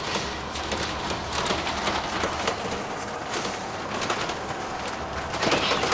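Passenger train running, heard from inside the carriage: a steady low rumble with many short rattling clicks.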